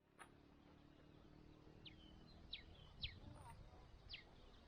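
Near silence with a few faint bird chirps: four or so short calls, each sliding down in pitch, about half a second to a second apart.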